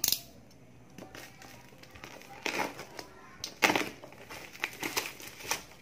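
Plastic parcel wrapping crinkling and rustling in irregular bursts as it is cut open and pulled apart by hand. The loudest crinkles come about two and a half and three and a half seconds in.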